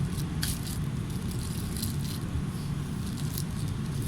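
A few light clicks and rattles of a packed cook kit being handled and closed up, over a steady low rumble.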